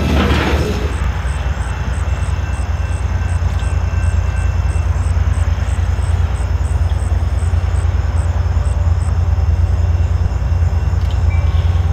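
The tail of a freight train clatters past for the first second. Then comes a steady low rumble of a pair of EMD GP39-2 diesel locomotives working toward the camera, with a faint high chirp repeating about twice a second.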